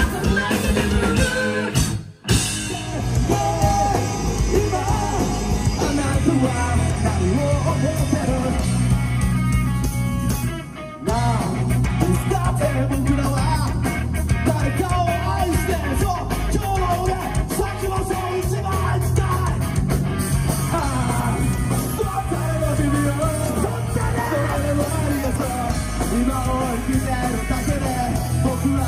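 Punk rock band playing live and loud, electric guitars, bass and drums with a singer shouting and singing over them. The sound cuts off abruptly twice, about two seconds in and about eleven seconds in, jumping to another song.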